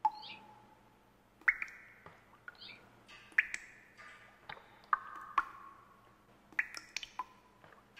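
Sound effects for an animated logo: a series of about ten sharp pings, each ringing briefly, with two small bird-like chirps among them.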